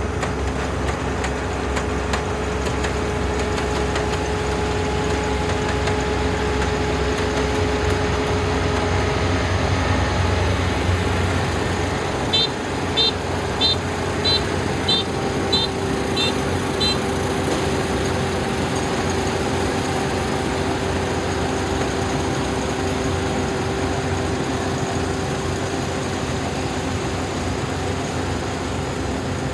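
Dynamax 470 combine harvester engine running steadily. Its low rumble drops off about twelve seconds in. Just after, a series of about eight short high beeps sounds over roughly five seconds.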